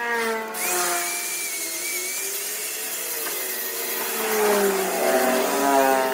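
Power tool cutting into wood, its motor pitch sagging and recovering as it bites, over a dense hiss of cutting.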